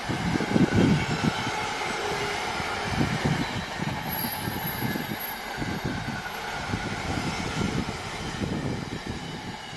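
Intermodal freight train's container wagons rolling past at speed: a steady rumble of wheels on rail with irregular thumps. It slowly fades as the last wagons pull away.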